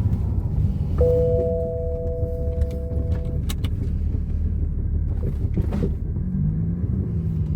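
BMW N54 twin-turbo straight-six idling with a steady low rumble while it misfires on cylinder 2. About a second in, a steady two-note electronic tone sounds for a couple of seconds, and a few sharp clicks follow.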